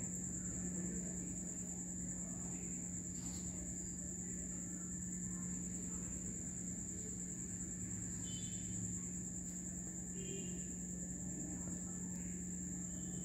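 Steady high-pitched insect chirring over a low steady hum, with a few short high chirps around the middle and near the end.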